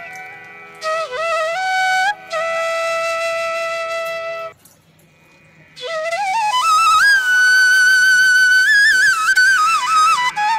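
Background music: a solo flute melody of long held notes joined by slides. It breaks off for about a second midway, then climbs to a long high note.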